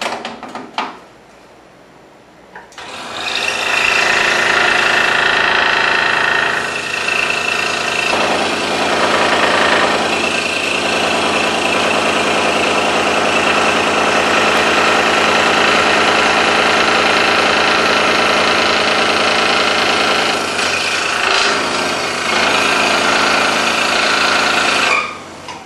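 A few clicks, then about three seconds in a scroll saw starts and runs steadily while its blade cuts through 1-inch-thick wood, sawing out the interior of a box. It stops abruptly just before the end.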